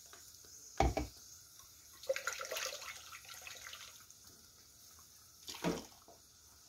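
Water sloshing in a glass blender jar as it is rinsed out and poured into a pan of pipián sauce, with a dull knock about a second in and another near the end.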